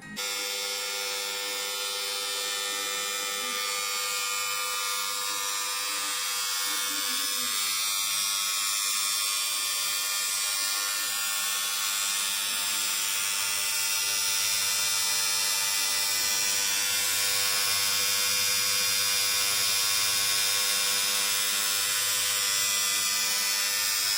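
Electric motor starter's contactor buzzing with a steady electrical hum after it is switched on. This is the noisy-starter fault, which the repairer puts down to carbon-fouled contacts that need cleaning.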